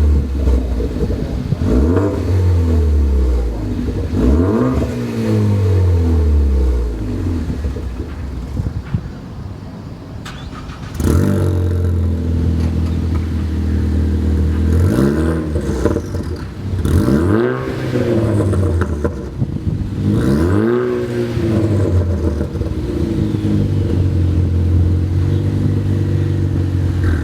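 Ford Focus ST's turbocharged 2.0-litre four-cylinder through an aftermarket exhaust, blipped repeatedly from idle, the revs rising and falling several times with steady running between. About 11 seconds in there is a sudden jump to a louder recording of the same revving.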